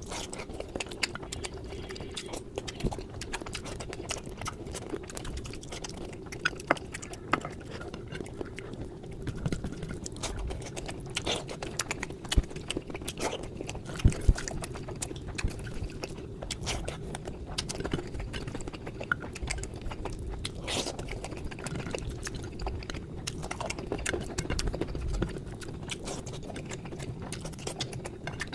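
Close-miked eating sounds: chewing and mouth clicks, irregular and continuous, over a steady faint hum.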